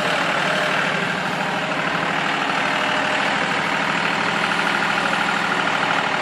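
Diesel tractor engine running steadily at idle, powering the hydraulics of a rear-mounted backhoe attachment while the boom is worked.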